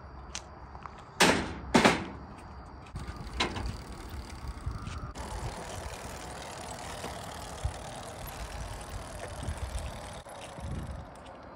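Two loud metal clanks about half a second apart, a little over a second in, with lighter knocks after them, as a dirt bike is handled off an open utility trailer. From about five seconds in, a steady rushing noise.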